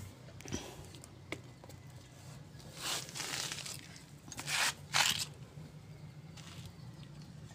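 Hands handling differential parts on cardboard: a rustling scrape about three seconds in and two shorter sharp scrapes a second or so later, with a few light clicks before them. A steady low hum runs underneath.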